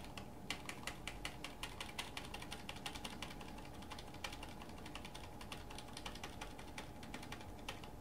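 Computer keyboard key tapped over and over in light clicks, several a second at first and then more sparsely, a key pressed repeatedly during startup to call up the boot-device menu.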